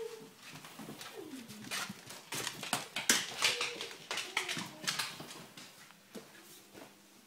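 Six-week-old German shepherd puppies whimpering in short cries that fall in pitch, over a run of quick clicks and taps of claws on a wooden floor, busiest in the middle.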